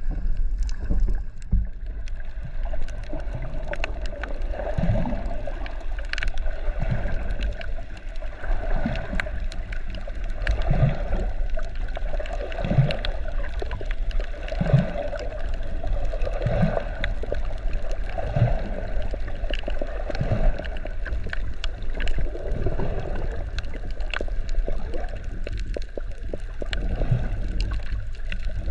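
Moving water with a steady low rumble. Many small clicks run through it, and a soft low swell recurs about every two seconds.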